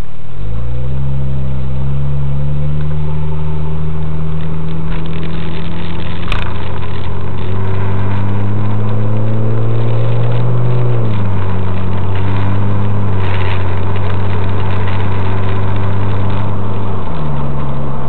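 Porsche 996 Turbo's twin-turbo flat-six, Gemballa GT600 Evo tuned, heard from inside the cabin as the car pulls away and accelerates. The engine pitch climbs, then drops suddenly twice, about eleven seconds in and again near the end. There is a sharp click about six seconds in.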